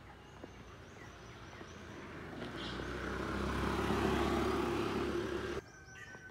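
Motor scooter passing close by, its engine and tyre noise growing louder to a peak about four seconds in, then cutting off suddenly.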